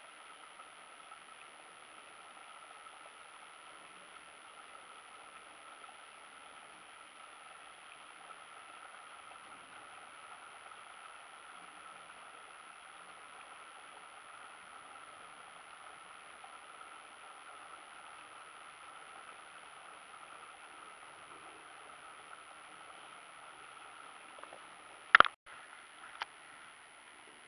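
Steady faint outdoor hiss like distant running water. Near the end comes one sharp, loud knock, followed about a second later by a fainter click.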